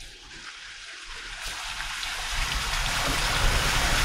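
Tyres of a Dacia Duster SUV rolling over a wet, muddy track: a hiss like rain or running water that swells over the first few seconds. A low rumble from the moving car comes in about two and a half seconds in.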